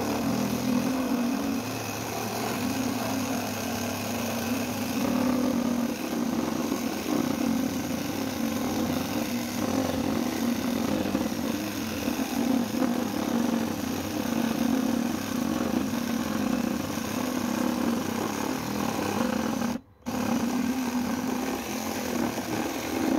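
Cordless battery saw with a jigsaw-style reciprocating blade running steadily as it cuts through a hard wooden 4x6 beam. It stops briefly about twenty seconds in, then carries on cutting.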